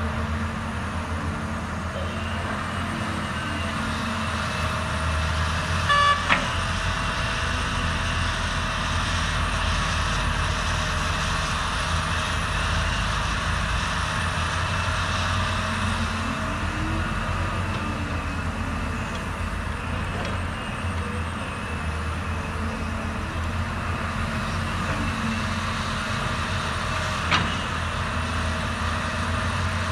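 Heavy diesel engines of a Caterpillar 320D excavator and dump trucks running steadily, the pitch swelling and easing now and then as they work. A short horn toot sounds about six seconds in, and a single sharp knock comes near the end.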